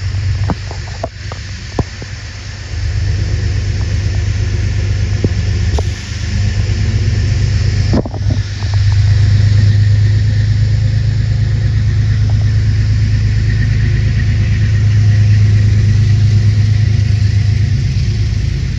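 A vehicle's heavy, steady low rumble, growing louder about three seconds in and again about eight seconds in, with a few sharp clicks in the first two seconds.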